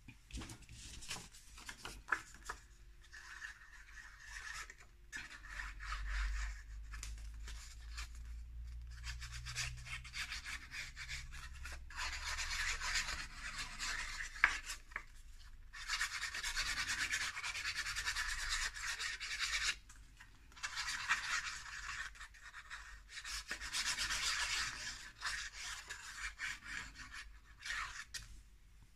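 Paper rustling and rubbing as hands slide, handle and smooth sheets of cardstock and patterned paper. Scattered light taps come first, then two long stretches of steady rustling in the second half.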